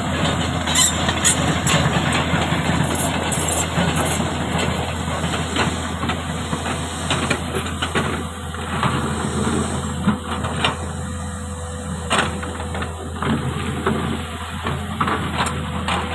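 Heavy diesel engine running steadily, with a few sharp knocks scattered through it.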